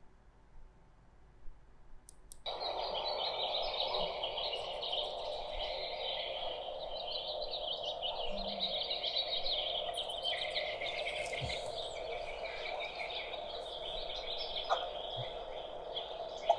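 Birds chirping over a steady outdoor background noise, starting suddenly a couple of seconds in after near silence.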